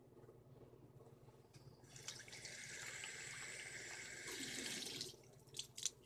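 Water running from a tap, a steady hiss that starts about two seconds in and stops about three seconds later, filling a cup of water.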